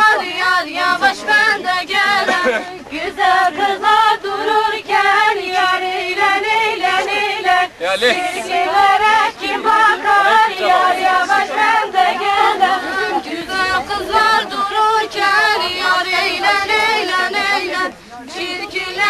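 A group of women singing a song together without instruments, several voices in unison on long, wavering notes.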